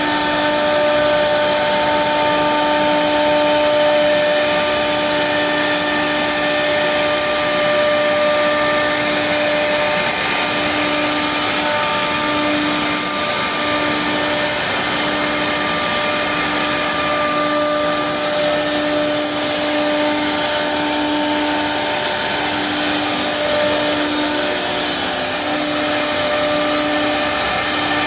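ATC wood CNC router with a 1325 bed cutting a wood sheet: its spindle runs with a steady whine over the rushing noise of the dust extraction at the cutting head. One of the tones starts pulsing on and off about ten seconds in.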